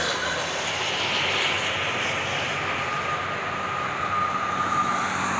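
Highway traffic passing on a toll road: a steady rush of engine and tyre noise, louder at the start as a vehicle goes by and easing slightly after, with a faint thin whine coming in about halfway through.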